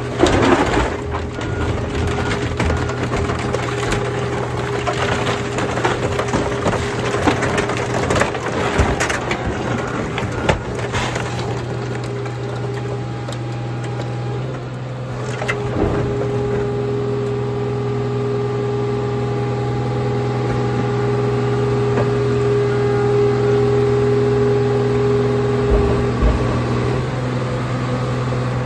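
Hydraulic car crusher flattening a pickup truck. Sheet metal and glass crunch and crack for about the first ten seconds over the steady hum of the crusher's hydraulic power unit. After that the press drones on with a steady whine, with a knock about halfway through and a couple more near the end.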